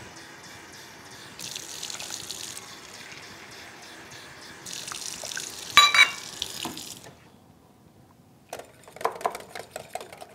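Kitchen faucet running into a metal measuring cup in two short spells, with a sharp ringing clink of metal about six seconds in. Near the end a wire whisk ticks rapidly against a glass bowl, beating eggs with water.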